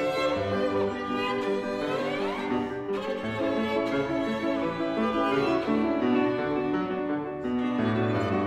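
Live violin and piano playing together in a chamber piece: bowed violin over piano chords, with sliding notes in the violin about two seconds in.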